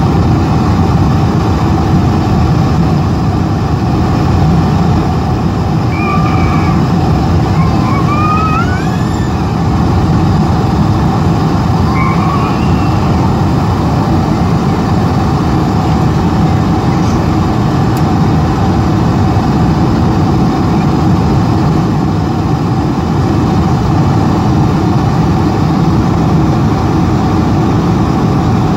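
Steady low rumble inside the cabin of a Boeing 747-400ER on approach, from its engines and the rush of air past the wing with the flaps extended.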